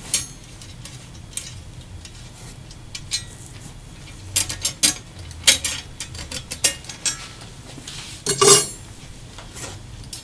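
Metal drapery scrolls and their small nuts and screws being handled by hand: scattered light clicks and clinks of metal parts, with a louder clatter near the end.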